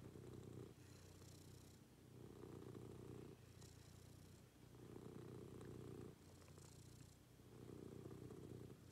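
Domestic cat purring softly, the purr swelling and easing with each breath about every two and a half seconds.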